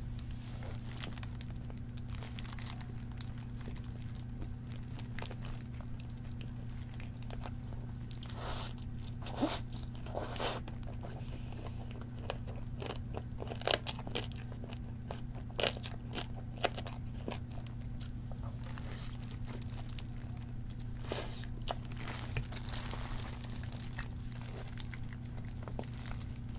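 Crunching bites and chewing of fried chicken drumsticks, irregular crunches coming every second or so. A steady low hum runs underneath.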